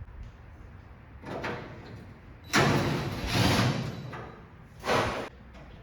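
Sliding, scraping handling noises with knocks: three separate stretches, the loudest in the middle lasting over a second.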